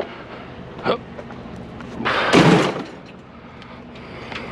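A single short scraping thud about two seconds in, lasting under a second, the loudest sound here.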